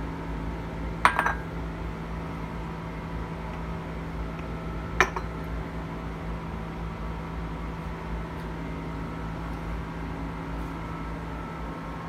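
Ceramic tableware clinking: a quick cluster of ringing clinks about a second in, then a single sharp clink a few seconds later, over a steady low hum.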